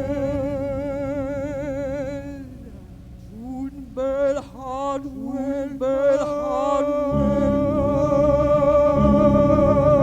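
Wordless singing with a wide vibrato, held over a steady low drone. A little before halfway the voice breaks into short swooping phrases, then settles back onto a long held note. About two-thirds in, a low rumbling noise drone comes in beneath it.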